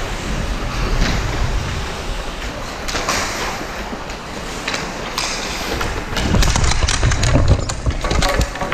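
Ice hockey skates scraping on the ice, with scattered sharp clacks of sticks and puck that come thicker and louder in the last few seconds.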